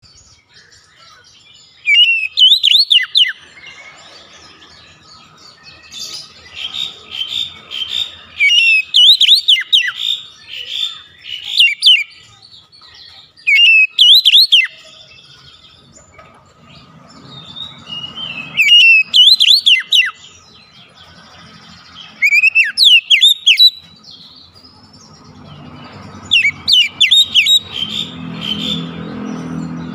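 Oriental magpie-robin singing: loud bursts of rapid, sweeping whistled phrases, each lasting one to several seconds, with short pauses between them.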